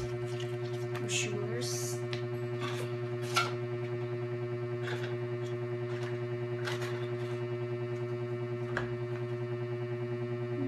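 Paper leaflets and a cardboard box insert being handled: scattered rustles with one sharper tap about three and a half seconds in, over a steady low hum.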